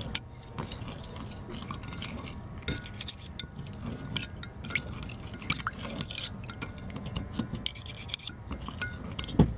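Metal spoon stirring teriyaki sauce in a glass measuring cup, scraping and clicking against the glass in a quick, irregular run of light ticks, with one louder thump near the end.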